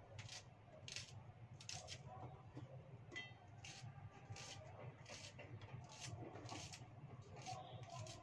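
Small kitchen knife slicing shallots held in the hand, a quiet crisp cut about twice a second, over a low steady hum.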